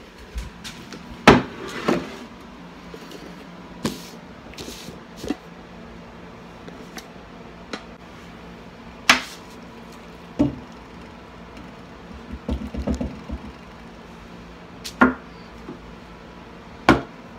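A spoon knocking and scraping against a pot while portions of no-bake cookie mixture are scooped out and dropped onto parchment paper: scattered sharp clinks and knocks, a second or more apart, with a short burst of rattling about two-thirds of the way through.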